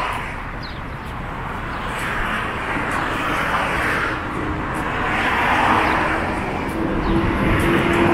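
City street traffic: cars passing one after another, each swelling and fading as it goes by. An engine hum comes up near the end as another vehicle approaches.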